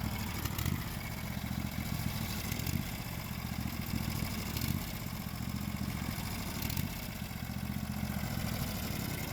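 Sawmill's engine running steadily.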